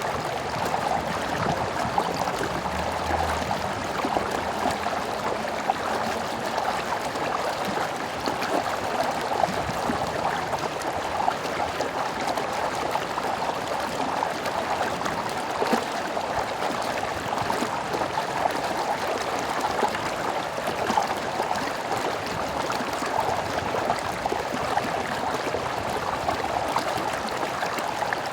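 Water of a stream flowing steadily: an even, continuous rush with a fine bubbling texture and no pauses.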